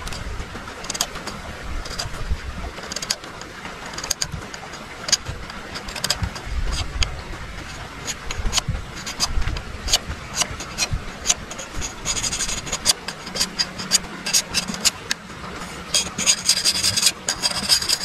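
Billhook blade knocking and shaving against a thin bamboo stick on a wooden chopping block: irregular sharp strokes about one a second, coming quicker near the end.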